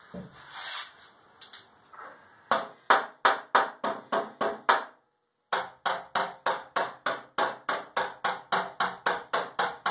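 Hammer tapping the steel inner wheel tub of a Subaru GC8 Impreza's engine bay while the panel is braced from the other side, lightly working around a dent to bring the metal back to shape. The taps are rapid, even and ringing, about five a second, starting about two and a half seconds in, with a short break halfway through.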